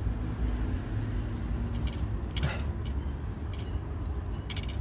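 Steady low rumble of outdoor background noise, with several brief rustles and clicks close to the microphone; the loudest is a short rustle about halfway through.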